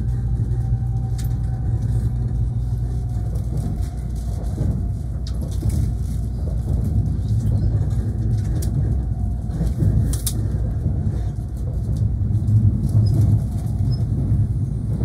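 Cabin noise of a Tokaido Shinkansen train running: a steady low rumble, with a few sharp clicks and rattles, the clearest about five and ten seconds in.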